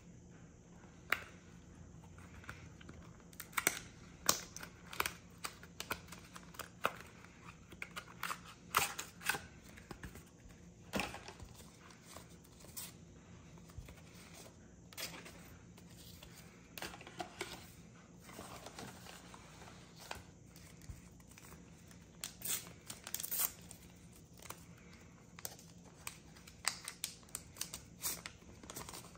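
Foil wrapper of a Pokémon trading-card booster pack crinkling and tearing, with scattered short rustles and taps of cards being handled.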